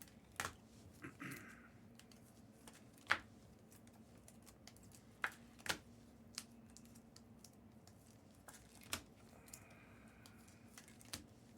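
Trading cards being handled on a table: a few faint, scattered taps and clicks, with a short rustle about a second in.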